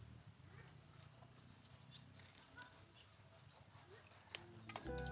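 Faint outdoor quiet with a high chirp repeating about three times a second over a low steady hum, and one small click about four seconds in. Background music starts just before the end.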